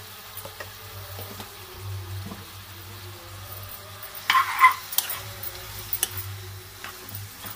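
Oil sizzling faintly under raw chicken and ginger-garlic paste in an aluminium pot, with a metal spoon stirring. About four seconds in the spoon scrapes and clanks loudly against the pot, then gives several lighter knocks.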